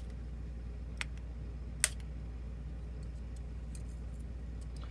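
Tweezers and small lock pins clicking as a pin stack is taken out of a disassembled pin-tumbler lock: a few light metallic ticks, the sharpest a little under two seconds in, over a low steady hum.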